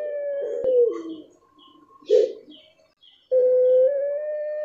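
Puter pelung, a domestic Barbary dove strain, giving its long drawn-out coo. A held note ends with a drop in pitch about a second in, a short coo follows at about two seconds, and another long held note begins near the end.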